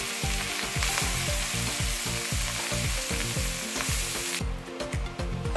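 Grated carrots sizzling as they hit hot ghee in an aluminium kadhai, the frying hiss cutting off suddenly about four seconds in. Background music with a steady beat runs underneath.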